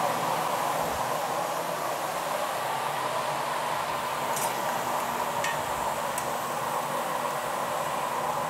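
Gas-fired glory hole (glassblowing reheating furnace) burner and blower running with a steady rushing noise. A few faint high clinks come in midway.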